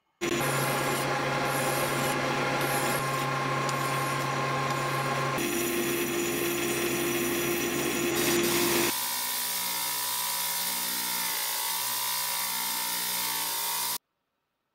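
Metal lathe running while sandpaper is held against a spinning stainless steel ball to smooth and polish it: a steady hum with an abrasive rubbing hiss. The tone changes abruptly twice, then the sound stops suddenly near the end.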